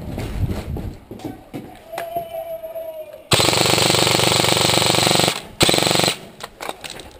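Airsoft rifle firing on full auto close to the microphone: a loud rapid rattle lasting about two seconds, starting about halfway in, followed by a second short burst. Before the bursts there are quieter shuffling movement sounds.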